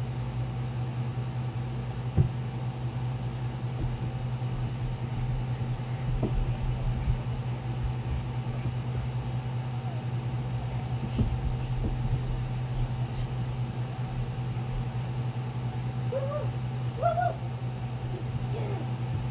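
A steady low hum, with a single sharp knock about two seconds in and a few faint voice-like sounds near the end.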